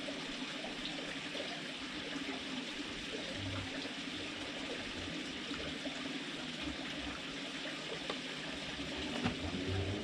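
A steady hiss with a low hum beneath it and faint scattered clicks, with a single sharper click near the end.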